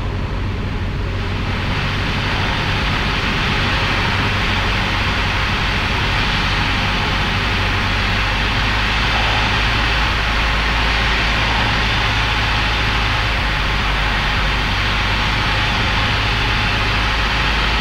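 Cabin noise of a Cessna 172 on final approach: the piston engine and propeller drone steadily at reduced approach power, under a steady rush of wind over the airframe.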